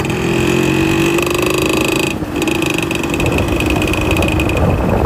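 Small motorcycle engine running under way, with a steady whine and a fast, even pulsing, and air rushing past. About two seconds in it dips briefly, then carries on at a slightly lower pitch.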